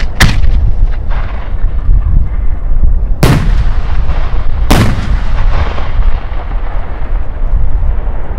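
Italian aerial firework shells going off: four sharp bangs, the second weaker, each trailing off in a long echo, over a steady low rumble.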